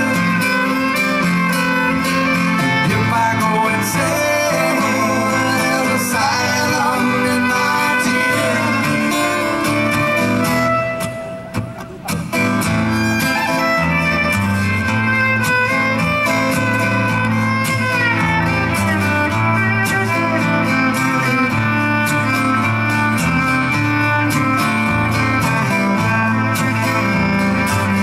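Live acoustic americana music: a strummed acoustic guitar with a fiddle playing over it, and a woman's voice singing. The music dips briefly about halfway through, then resumes at full level.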